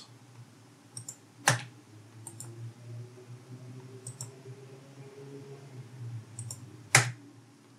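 Computer keyboard keystrokes and mouse clicks: a handful of short, separate clicks, the two loudest about a second and a half in and near the end, over a faint steady background hum.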